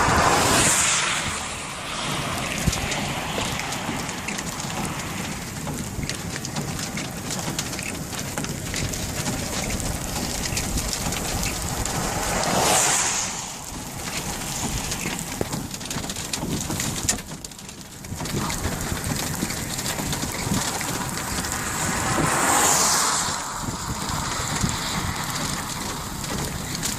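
Wind buffeting the microphone in a steady rush, with three louder swells: one at the start, one around the middle and one near the end.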